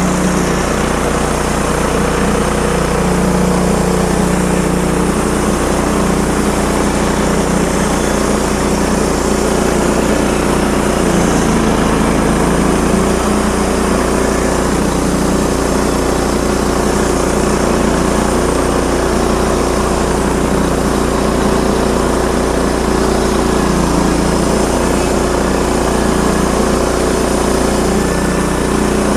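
Engine running loudly and steadily at constant speed, likely the sawmill's own engine, with no change in pitch or load.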